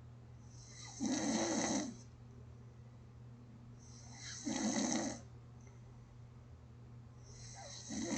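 Gentle snoring in slow, even breaths: three snores about three and a half seconds apart, each lasting under a second and led by a quieter in-breath, over a steady low hum.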